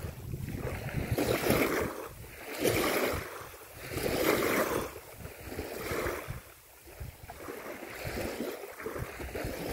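Wind buffeting the microphone and small river waves lapping at the bank, a rushing noise that rises and falls in swells every second or two over a low rumble.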